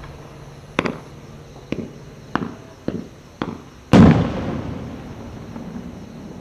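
Aerial firework shells going off: five sharp bangs about half a second to a second apart, then a much louder boom just before four seconds in that echoes away slowly. The big boom is the burst of an 8-inch falling leaves bouquet shell.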